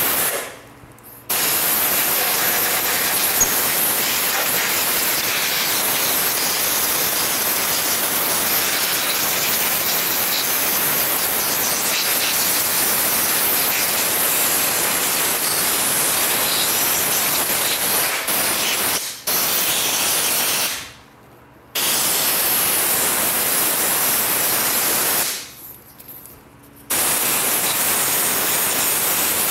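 Compressed-air blow gun blasting dust and lint out of the underside of an industrial sewing machine: a loud, steady hiss of air, let off briefly about a second in and twice in the last third.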